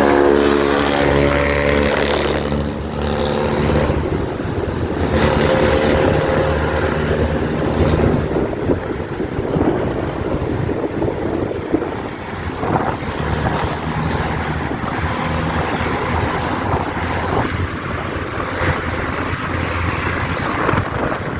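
A bus's loud modified exhaust, rasping and tinny, with a fast, rough pulsing of engine firing as it runs past. Steady tones fade out in the first three seconds.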